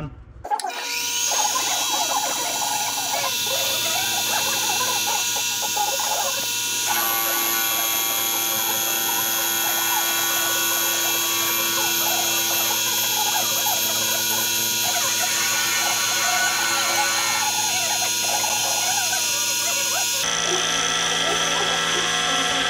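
Mini lathe's electric motor running with a steady whine while an indexable tool faces the end of a spinning round bar, adding a scratchy cutting noise. The sound shifts about seven seconds in, the cutting noise eases later, and the sound changes again near the end.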